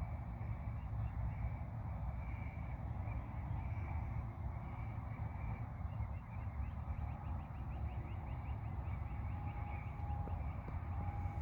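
Outdoor ambience: a steady low rumble with faint high bird chirps, a rapid trill about seven seconds in, and a short whistled tone near the end.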